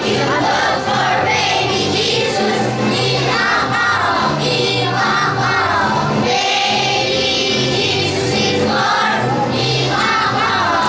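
Young children singing a Christmas song together as a group, over musical accompaniment with a steady bass line.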